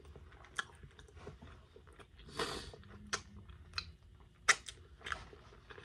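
A person chewing chicken wings close to the microphone, with scattered wet mouth clicks and lip smacks. There is a short breathy hiss about two and a half seconds in.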